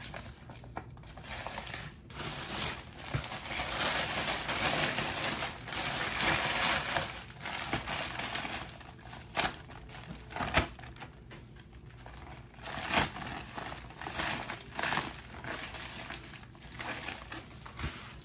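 A padded Priority Mail envelope crinkling and rustling as it is handled and the jeans are stuffed into it. A few sharp clicks and knocks come about halfway through.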